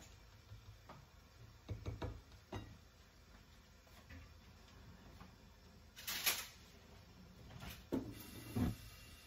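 A few soft knocks and a short clatter around a lidded frying pan on a gas stove, with two thuds near the end as the pan's handle is taken hold of.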